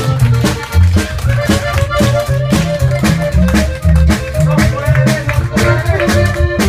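Live band music: an accordion melody over a deep, pulsing bass line and a steady drum beat.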